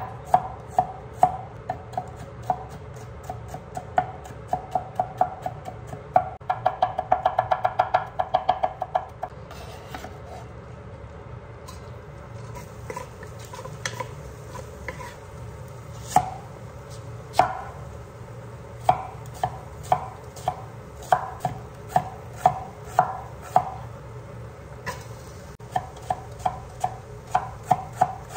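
A kitchen knife chopping garlic and onion on an end-grain wooden cutting board, in sharp regular strokes. There is a quick run of rapid strokes a quarter of the way in, then slower scattered knocks in the middle, then steady chopping again near the end.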